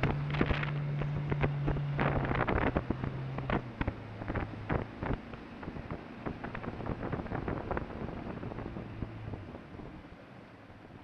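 Small duck boat under way, its motor's steady low hum weakening: one tone of it drops out a few seconds in and the rest fades away near the end. Gusts of wind crackle on the microphone throughout, and the whole sound grows quieter.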